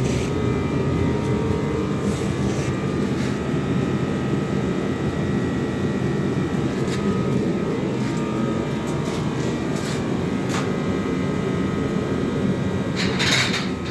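A motor running steadily: an even, engine-like drone with a few faint clicks over it.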